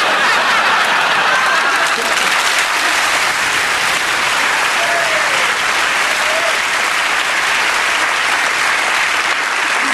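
A large theatre audience laughing and applauding: a dense, steady wash of clapping that starts suddenly and holds level for about ten seconds, with a few voices showing through it.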